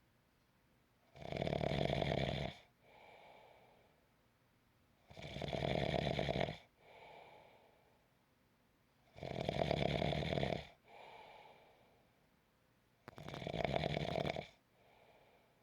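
A person snoring in a slow, regular rhythm: four loud snores about four seconds apart, each followed by a softer, shorter breath.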